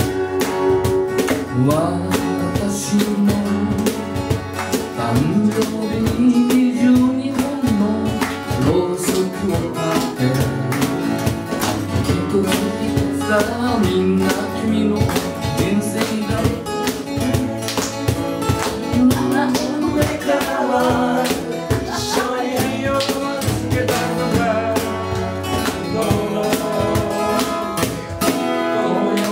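Live acoustic music: two acoustic guitars strumming and picking a tune together, with a cajón keeping the beat.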